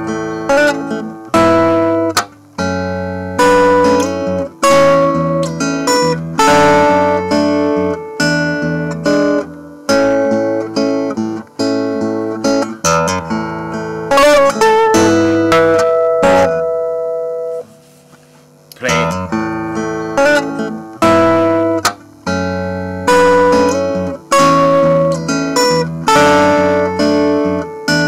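Acoustic guitar chords played through a NUX Stageman AC50 acoustic amplifier, the amp's looper playing back a recorded phrase while a further guitar part is overdubbed on top. The playing breaks off briefly about two-thirds of the way through, then picks up again.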